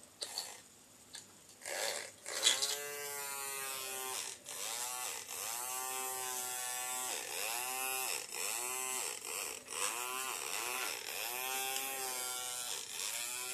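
Small electric motor of a homemade micro circular saw, made from an old toy jigsaw, whining in a run of short surges that rise and sag in pitch about once a second. A few clicks come just before the motor starts.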